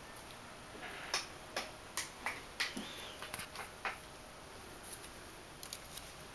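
Sharp clicks and ticks of Persian kittens' claws and paws on a wicker picnic basket, and of its wicker giving under them, as they clamber over and into it. There is a quick run of clicks from about one to four seconds in, then a few lighter ones.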